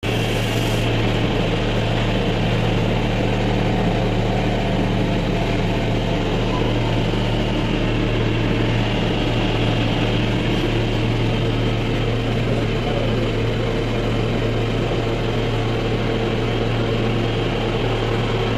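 Commercial cotton candy machine running, its motor spinning the heated spinner head with a steady low hum as sugar is spun into floss.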